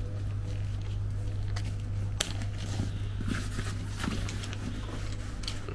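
A nylon travel bag being handled while its shoulder strap is clipped on, with fabric rustling and a few sharp plastic clicks, the loudest about two seconds in. A steady low hum runs underneath.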